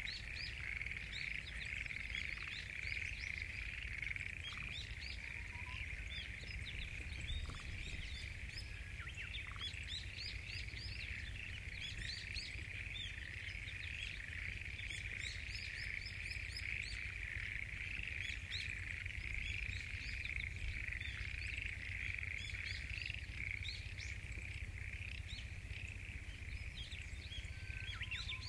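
Dense chorus of frogs calling without a break, a steady mass of calls with many short rising chirps above it. The recordist takes the frogs to be mostly black-spotted pond frogs (tonosama-gaeru), perhaps with other species among them.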